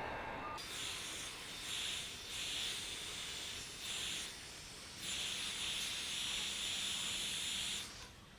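Heat gun blowing hot air, a hiss that swells and fades several times, with the longest stretch lasting about three seconds near the end.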